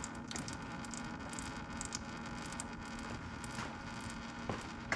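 Faint rustling and light scraping of a paper towel wiping old oil off a hand, with scattered small clicks, over a low steady hum.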